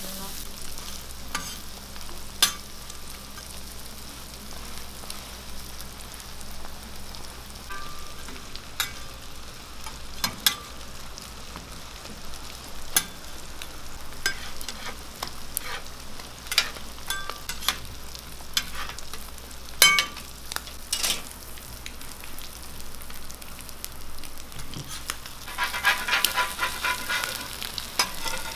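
Fried eggs and beef patties sizzling on a hot flat-top griddle, with scattered sharp clicks and scrapes of a metal spatula striking the steel plate. There is a quick run of scraping near the end as the spatula works among the eggs.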